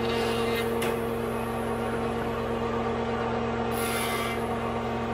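Benchtop thickness planer running with a steady motor hum. Twice, about half a second in and again around four seconds, a brief louder rasp comes as a board feeds through and the knives cut the wood.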